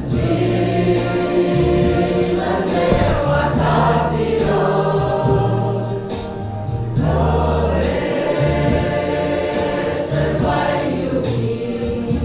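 A group of people singing a gospel song together with instrumental accompaniment: steady bass notes underneath and a regular percussive beat.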